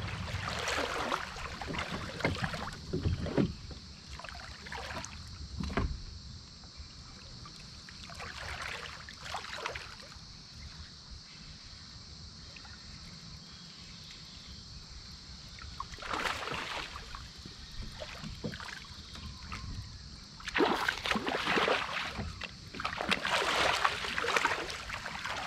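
River water splashing and sloshing in irregular bursts, with quieter stretches between, over a faint steady high hiss.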